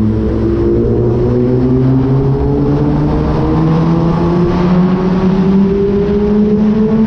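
Kawasaki ZX-10R's inline-four engine pulling hard under acceleration, its pitch rising slowly and evenly with no gear change, inside a road tunnel.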